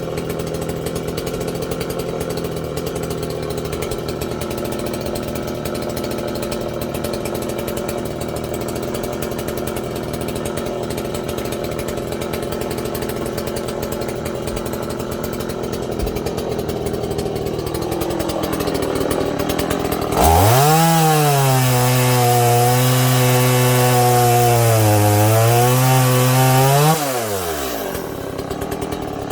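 Two-stroke chainsaw running. About 20 seconds in it is opened up to full throttle, its pitch sagging and recovering under load as if cutting wood. It drops back about 27 seconds in and revs up again right at the end.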